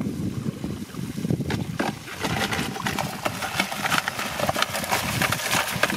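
A catch of small fish being shaken out of a mesh trap net into a plastic bucket: a dense, quick patter of wet slaps and rustling from flapping fish, wet netting and dripping water, thickening about a second and a half in.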